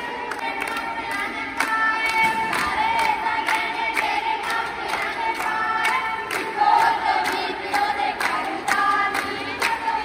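Women singing Punjabi boliyan together for giddha, over the steady hand clapping of the circle, about two claps a second.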